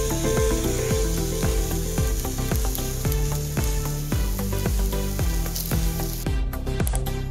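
Spiced potato sabzi sizzling in an oiled nonstick frying pan as it is stirred with a spatula, heard over background music with a steady beat. The sizzling stops near the end, leaving the music.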